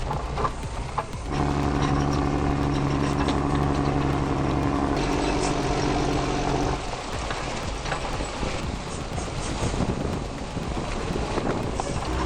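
Logging truck's engine running, a steady drone for the first half that gives way to rougher noise with scattered clicks.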